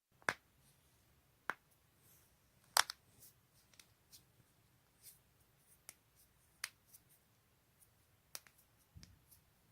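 Joints cracking: a series of sharp, separate pops, about half a dozen loud ones with fainter clicks between, the loudest a quick double crack about three seconds in.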